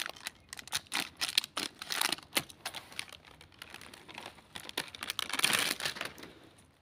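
Plastic snack packet crinkling and rustling as it is snipped open with scissors and emptied, with a quick run of light ticks and clicks as the puffed corn snacks tumble out and are spread by hand on the concrete; the rustling thickens about five seconds in.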